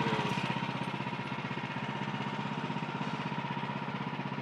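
Small gas engine of a Woodland Mills HM130MAX portable bandsaw mill running steadily, with an even, rapid pulse and a steady high tone.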